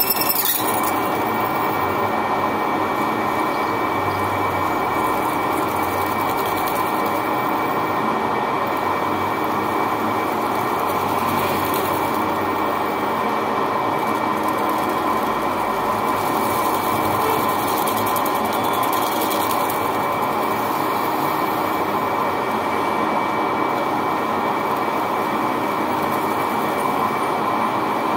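Manual lathe running steadily, with a steady high whine, as a cutting tool turns a spinning nylon bearing housing and peels off long curling chips.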